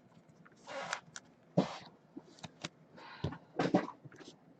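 Trading cards and their packaging being handled: short rustles, slides and sharp clicks as cards are pulled and shuffled by hand.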